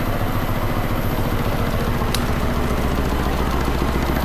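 Belliss & Morcom high-speed steam engine driving a DC generator, running smoothly at a steady speed with a fast, even beat. A single light tick sounds about two seconds in.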